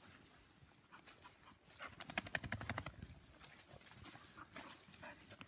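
Puppies moving about on a trail covered in fallen leaves: faint rustling, with a quick rattle of small clicks about two seconds in that lasts about a second.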